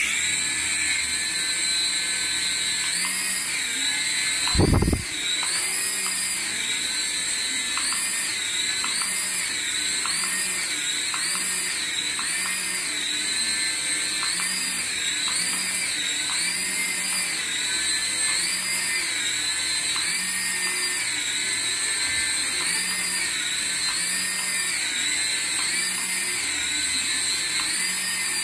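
Small electric motor of a battery-powered RC toy running with a steady high whine that wavers up and down in pitch a little less than once a second. A single low thump about five seconds in.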